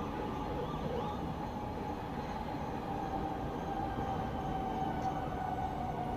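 Night ambience of a town heard from a distance: a steady low rumble, with a long drawn-out tone that grows stronger about halfway through and slides very slightly lower.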